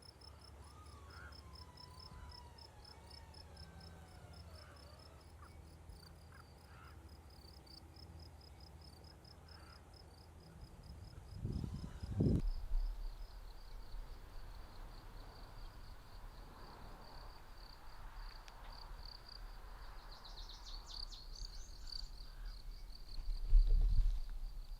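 Insects chirping steadily outdoors in a fast, pulsing high-pitched trill. Underneath is a low rumble, with louder thumps about halfway through and again near the end.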